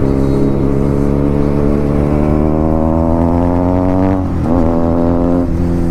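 Motorcycle engine under hard acceleration: its pitch climbs steadily for about four seconds, drops sharply at a gear change, then climbs again.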